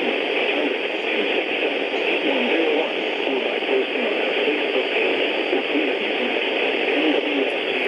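Radio receiver hissing with static: a steady rush of noise on a weak or empty channel, thin and narrow as through a small speaker.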